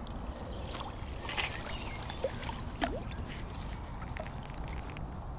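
Water splashing and dripping as a landing net holding a catfish is drawn in and lifted from the pond, with a few short sharp splashes, the strongest about a second and a half and about three seconds in, over a steady low rumble.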